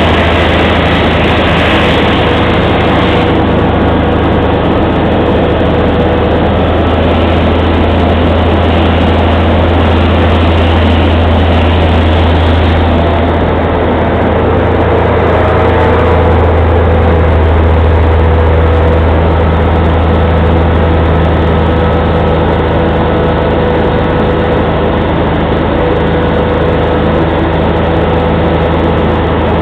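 Liebherr 974 tracked excavator's diesel engine running steadily: a loud, deep, even hum with a few steady higher tones over it, swelling slightly about two-thirds of the way through.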